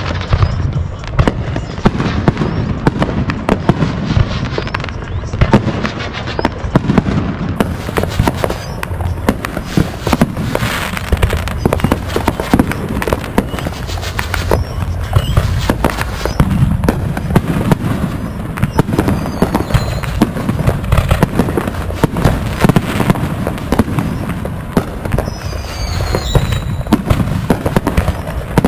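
Aerial fireworks going off in a near-continuous barrage: overlapping bangs, booms and crackling bursts with no real pause.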